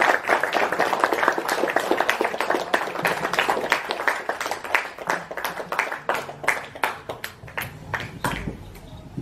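Audience applause, dense at first and thinning out to scattered single claps over the last few seconds.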